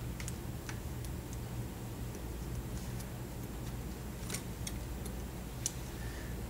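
Scattered faint clicks and taps from handling a Samsung Infuse's small flex-cable connectors as they are pressed back into their sockets on the circuit board, over a steady low hum.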